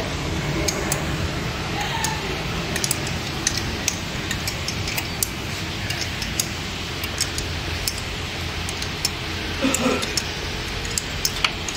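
10 mm metal wrench working the bolt of an engine knock sensor, giving irregular sharp metallic clicks and clinks as the bolt is loosened, over a steady low hum.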